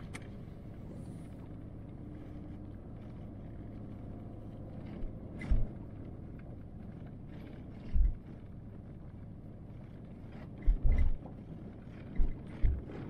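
Car rolling slowly along a gravel road, heard from inside the cabin: a steady low hum of engine and tyres, with a few dull thumps, several of them in the last few seconds.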